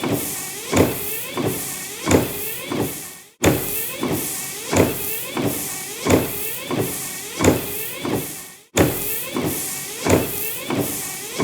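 Car windshield wipers sweeping back and forth, with a stroke about every 1.3 seconds over a steady hiss. The sound cuts off sharply and restarts twice, about a third of the way in and again about three-quarters through.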